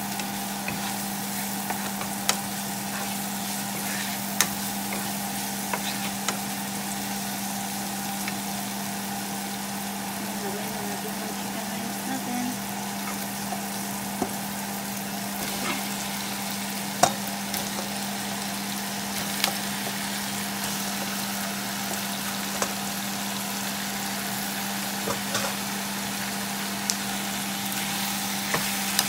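Sliced onion, garlic and ginger sizzling in hot oil in a frying pan as they brown, with scattered crackling pops and a wooden spatula stirring through them. A steady low hum runs underneath.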